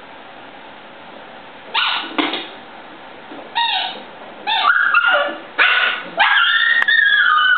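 Seven-week-old Bouvier des Flandres puppies yipping and barking. About two seconds in, a string of short, high calls begins, and near the end comes a longer yelp that falls in pitch.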